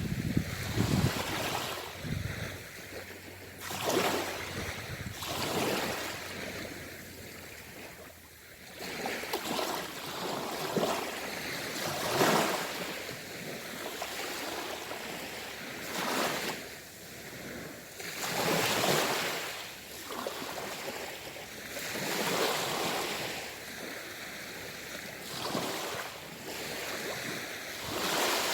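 Sea waves breaking and washing in, a fresh surge of surf swelling and fading every three to four seconds.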